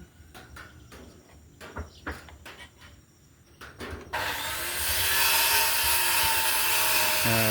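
A few light knocks and clicks of the tool being handled, then about four seconds in an electric hand planer starts and runs steadily, its freshly fitted blades shaving wood with a loud hiss.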